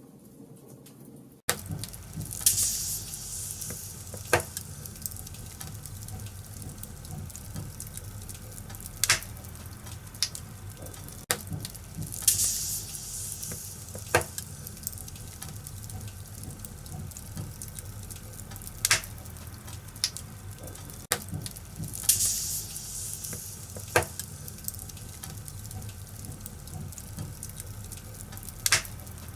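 Wood fire burning in a fireplace: a steady crackle over a low rumble, with sharp pops every few seconds and occasional hissing bursts. It comes in suddenly about a second and a half in, after a quieter moment.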